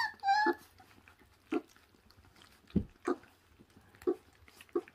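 Puppies chewing and tearing at raw meat on the bone: a brief high whine at the very start, then a string of short, separate wet chewing and tearing sounds.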